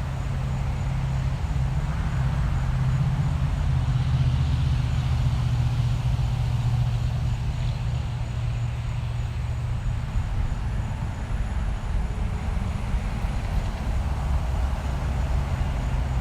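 Steady road traffic: a continuous low rumble of cars and trucks going by, with an even hiss of tyres on the road above it.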